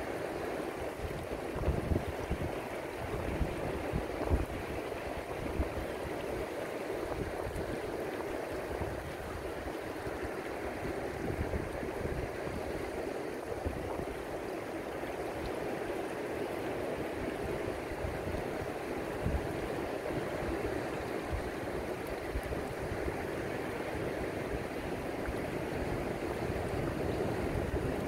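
Shallow sea water washing steadily over rocks and sand at the water's edge: a continuous rushing and lapping of small waves, with a few low bumps in the first few seconds.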